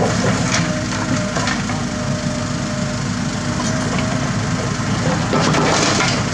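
Kobelco SK76 mini excavator's diesel engine running under load as the hydraulic arm lifts and swings the bucket, with crunching and crackling of soil and stones. Near the end a rush of soil and rock pours out of the bucket into the dump truck's steel bed.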